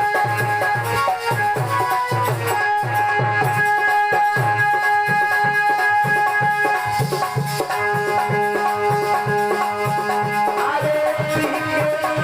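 Instrumental interlude of Indian devotional music: long held melody notes over a steady hand-drum beat with a shaker-like rattle. The held notes move to a new pitch near the end.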